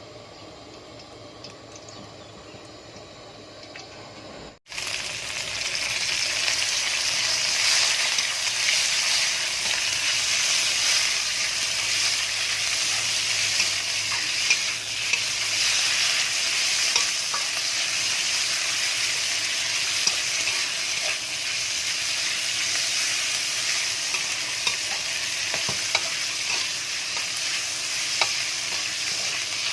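Pad kra pao stir-frying in a hot pan: a loud, steady sizzle with scattered clicks of a spatula against the pan. It starts abruptly about four and a half seconds in, after a quiet stretch.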